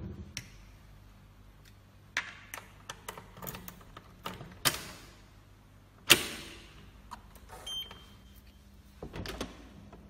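Metal clicks and clacks of a hotel electronic door lock's lever handle and key cylinder being worked by hand, the loudest clack about six seconds in with a brief ring. A short faint beep just before eight seconds.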